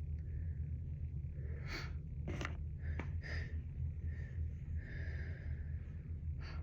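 A congested person's breathing: several short sniffs and gasping breaths through a blocked nose, over a steady low hum.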